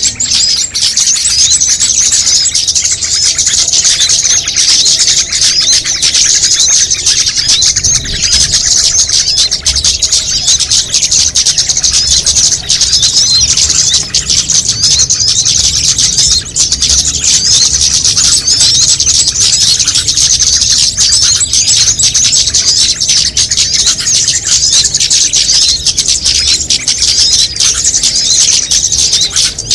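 Dense, unbroken chorus of many small songbirds chirping and twittering at once, high-pitched and loud throughout: a mixed bird-lure recording layering the calls of several small bird species.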